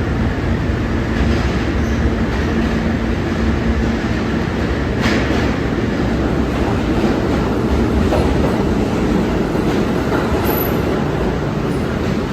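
MTA R42 subway garbage train running through a station without stopping: a loud, steady rumble of wheels on rail. It is marked by a few sharp clicks and a brief high squeal near the end.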